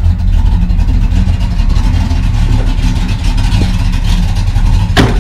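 A 1966 Pontiac GTO's 389 V8 idling steadily. A brief sharp click near the end.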